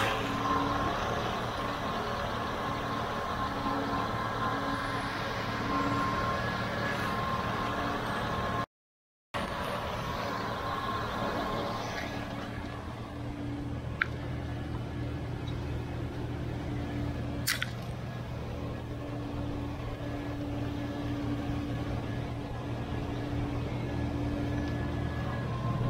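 Steady drone of farm feeding machinery running, the silage bunk feeder and silo chute equipment. It breaks off briefly about nine seconds in, with two sharp clicks later on.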